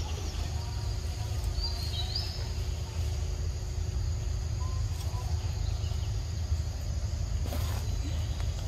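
Forest ambience: a steady high insect drone over a low rumble, with a short chirp about two seconds in and a brief burst of noise near the end.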